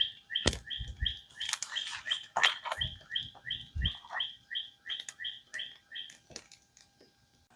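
A songbird singing a long run of repeated clear two-part notes, about three a second, stopping about six seconds in, with a few low thumps mixed in.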